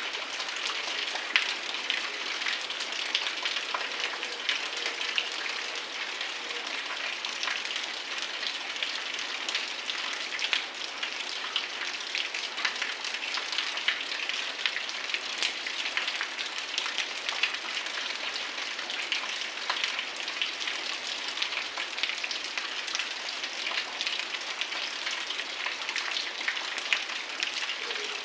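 Heavy rain falling steadily: a dense, even hiss of rain with many sharp individual drop hits throughout.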